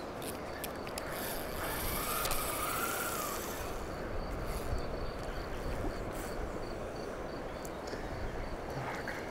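Small inline fishing reel on a side-nod rod, its ratchet giving irregular clicks as line is handled at the spool, over a steady outdoor background hiss.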